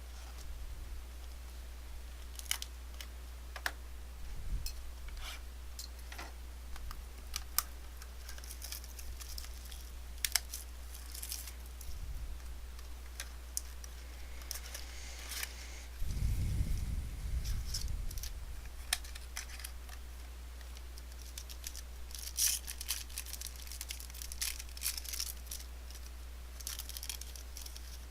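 Hands opening a trading card box and its packs and handling the cards: scattered clicks and taps of cardboard, with tearing and crinkling of packaging. A steady low electrical hum runs underneath, and a dull low rumble comes about sixteen seconds in.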